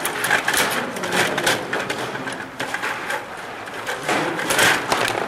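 Rapid, irregular plastic clicking and clattering from a Stiga Play Off table hockey game being played: rods pushed and twisted, plastic figures knocking together and against the puck and boards.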